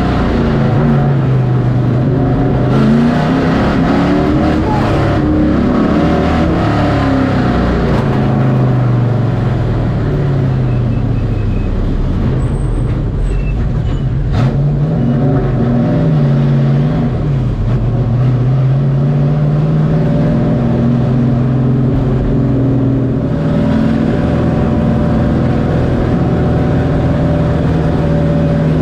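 Race truck's engine heard from inside the cockpit at racing speed, its pitch climbing and dropping again and again as the driver gets on and off the throttle around the short oval. It holds a steady pitch for the last few seconds.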